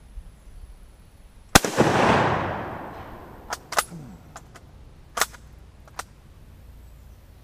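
A single loud rifle shot from a sporterized Kar98k bolt-action firing steel-cased 8mm Mauser about one and a half seconds in, its echo rolling away over about a second and a half. Then the bolt is worked: a run of sharp metallic clicks and clacks as the spent case is extracted and a fresh round chambered.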